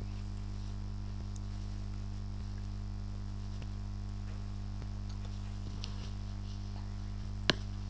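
Steady low electrical hum, like mains hum on the recording line, with a few faint ticks and one sharp click about three-quarters of the way through.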